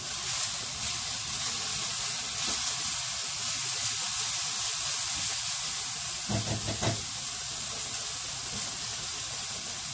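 Food frying in a pan: a steady sizzling hiss.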